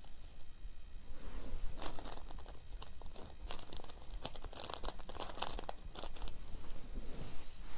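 Butter paper over carbon paper crinkling and crackling under the fingers as pins are pushed through it into the fabric. The crackles come in a dense cluster through the middle, with a few more near the end.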